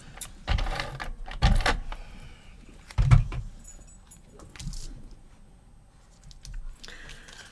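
Paper and small craft tools handled on a tabletop: short bursts of rustling and clattering with light knocks, the strongest three in the first three seconds, then fainter ones.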